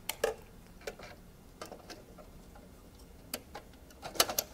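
Light clicks and taps of a server backplane circuit board being handled and slid into the sheet-metal grooves of the chassis, a few scattered clicks followed by a quick cluster of clicks near the end.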